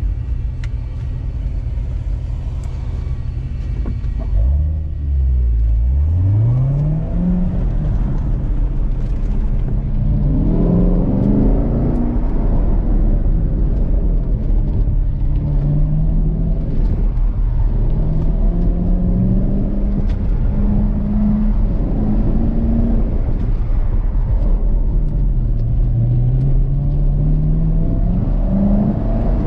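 2017 Chevrolet Corvette Grand Sport's 6.2-litre LT1 V8 heard from inside the cabin. It runs steadily at low revs for the first few seconds, then the revs climb sharply about four and a half seconds in, and for the rest of the run the engine note keeps rising and falling under hard acceleration and lifting.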